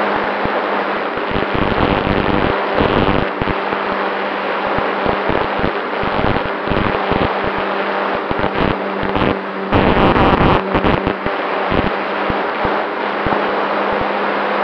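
Onboard sound of a radio-controlled Cessna 188 model in flight: its motor and propeller drone at a steady pitch under heavy wind buffeting on the microphone, with a louder gust of buffeting about ten seconds in.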